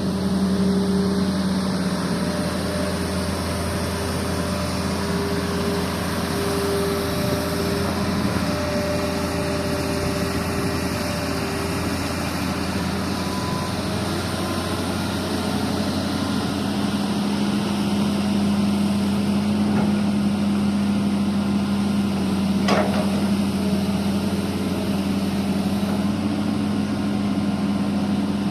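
Diesel engine of heavy earthmoving machinery, an excavator at work, running steadily with a constant hum. One short, sharp clank comes about three quarters of the way through.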